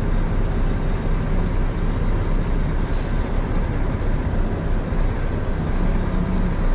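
Lorry's diesel engine running with a steady low rumble while the truck creeps forward at low speed. A short hiss of compressed air from the air brakes about three seconds in.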